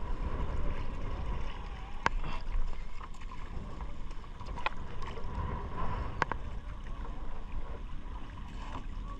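Wind and water rushing and lapping against a small outrigger fishing boat at sea, a steady low rumble, with three sharp knocks spaced a couple of seconds apart.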